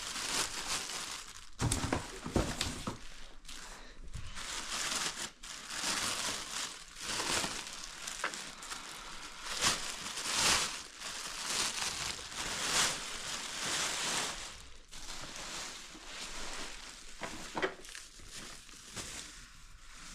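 Plastic packaging crinkling and rustling in uneven swells while being handled and pulled off, with a few knocks about two seconds in.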